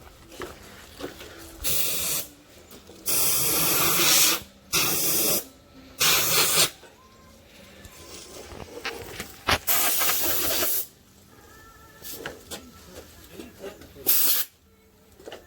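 Power cutting tool slicing the Jeep XJ's sheet-steel hood between drilled holes, run in about six short bursts of half a second to a second and a half, each starting and stopping abruptly.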